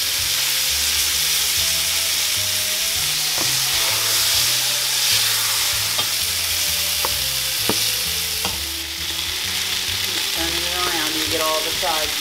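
Flour-dredged beef cubes searing in hot olive oil in a large pot: a steady sizzle, with several sharp clicks of metal tongs against the pot and meat as the pieces are turned in the middle of the stretch.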